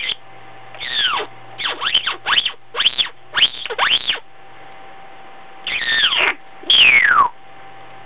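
African grey parrot whistling: a quick run of swooping whistles that rise and fall, a short pause, then another whistle and a louder one sliding steadily down in pitch near the end.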